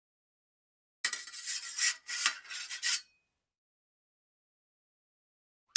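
A quick series of harsh scraping strokes, starting about a second in and lasting about two seconds, followed by a sharp metallic hit right at the end.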